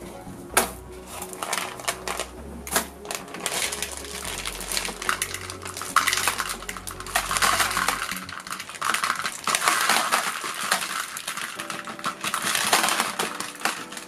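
Ceramic ring filter media clattering as it is poured by the handful into the small plastic filter case of a corner aquarium filter, with loose rings dropping and rattling onto a plastic tray.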